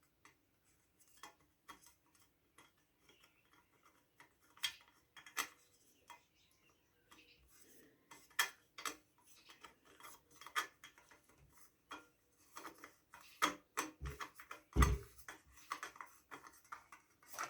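Light metallic clicks and taps of a small screw and hand tools against small-engine parts, sparse at first and coming more often in the last few seconds, with one dull thump near the end.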